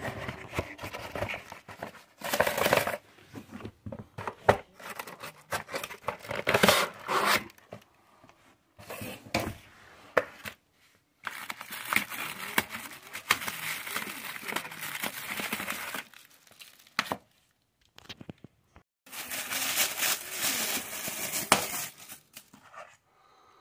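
Action figure's paper packaging crinkling and tearing as the figure is unwrapped from its cardboard box, in three spells of rustling with sharp clicks and knocks of handling between them.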